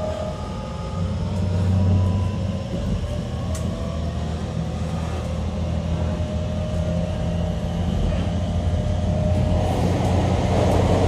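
JR Kyushu 813 series electric train running, heard from inside the motor car. A steady low rumble of wheels on rail runs under a faint traction-motor whine whose pitch drifts slowly. A rougher, noisier rush builds near the end.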